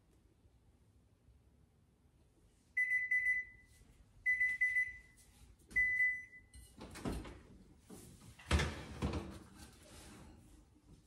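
An electric oven's beeper sounds three long beeps of one pitch, then the oven door opens with a clatter as the pan of cinnamon rolls is pulled off the metal rack.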